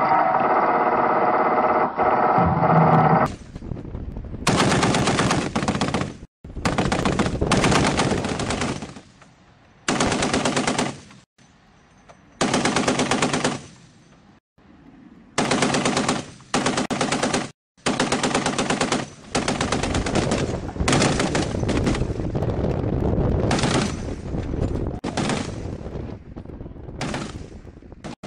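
Mounted machine guns, a light machine gun and an M2 .50-calibre heavy machine gun, firing a dozen or so rapid bursts of one to two seconds each with short gaps between. The bursts begin about three seconds in, after a steady drone.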